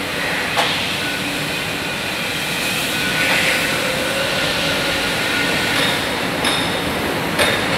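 Steady din of a factory assembly hall: machinery and air-handling noise with faint steady tones in it, and a few sharp clanks near the end.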